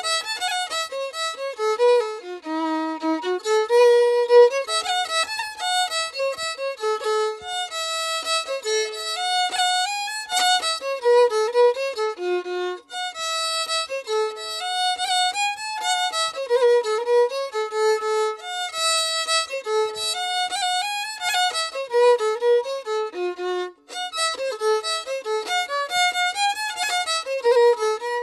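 Background music: a solo violin playing a quick melody, note following note, with two brief breaks in the line.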